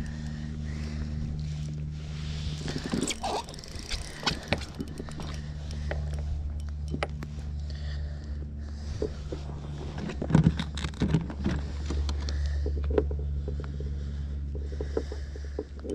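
Scattered knocks, clicks and scrapes of a caught bass and fishing tackle being handled aboard a kayak, over a steady low hum.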